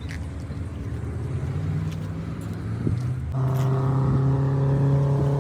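Engine running, its pitch climbing slowly, then turning louder and fuller about three seconds in and holding steady.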